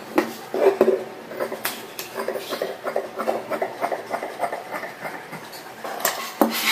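Large tailoring shears cutting blouse fabric laid on a wooden table, a run of quick snipping strokes. There are a couple of sharper knocks on the table about half a second in and near the end.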